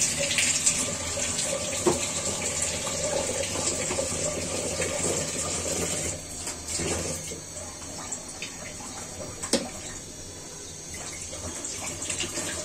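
Steady hissing rush of a gas stove burner flame under an iron karai of heating oil, a little quieter in the second half, with a couple of faint clicks.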